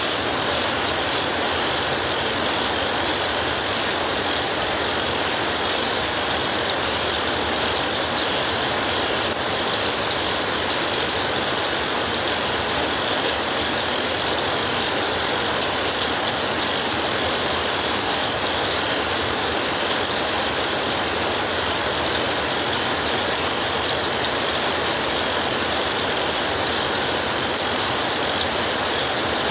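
Heavy rain falling steadily, a dense unbroken hiss with no thunder.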